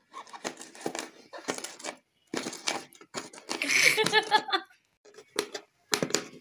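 Two kitchen knives, one serrated, slicing green bell pepper into strips and dice on a plastic chopping board: irregular crisp cuts and taps of the blades on the board, with a brief pitched sound about four seconds in.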